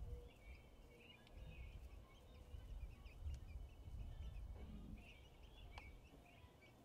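Faint, scattered peeping of three-week-old chicks sheltering under a broody hen, over a low background rumble.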